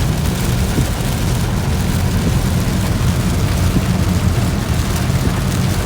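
Steady low rumble of a car driving in heavy rain, heard inside the cabin, with the hiss of rain and wet road under it.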